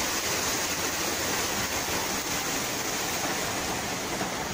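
Flash-flood water rushing through a washed-out road breach: a steady, even rush of churning water.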